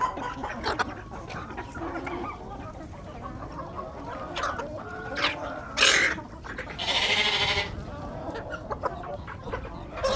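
Chickens clucking and calling, with one louder drawn-out call about seven seconds in.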